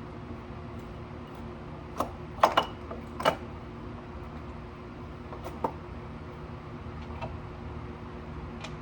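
A few short clicks and knocks of metal engine parts being handled as the cylinder is slid back on over the piston and new Athena gasket, the loudest cluster about two to three and a half seconds in, over a steady low hum.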